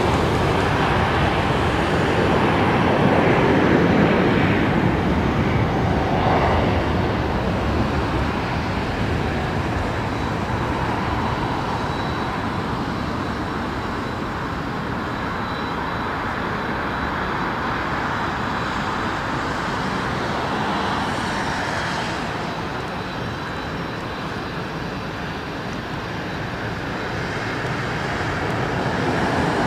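Twin-engine jet airliner at takeoff thrust on its takeoff roll: a steady jet engine noise, loudest in the first few seconds, fading slowly as the aircraft draws away down the runway, and swelling again near the end as it lifts off.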